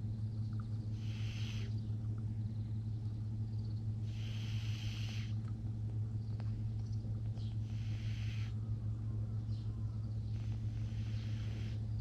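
Cat snoring in its sleep: four breathy snores, each about a second long and roughly three seconds apart, over a steady low hum.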